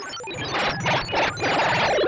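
Reversed, heavily effected TV channel ident jingle: a jumble of short, bright, chime-like notes over noisy surges, growing louder about half a second in, with a band of sound bending downward in pitch near the end.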